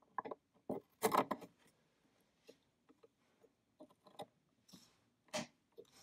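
Light plastic-and-metal clicks and scrapes as a Crucial RAM module is slid into an iMac memory slot and pressed home. The loudest cluster comes about a second in, and a short click near the end fits the module snapping into place.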